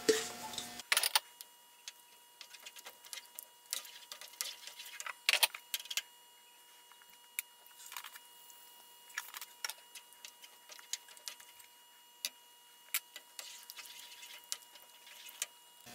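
Spoon stirring thick chili in a skillet: scattered light clicks and taps of the utensil against the pan at irregular intervals.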